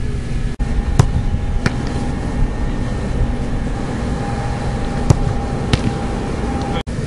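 Sharp thuds of a soccer ball being struck during goalkeeper shot-stopping drills, in two pairs, about a second in and about five seconds in, over a steady low outdoor rumble.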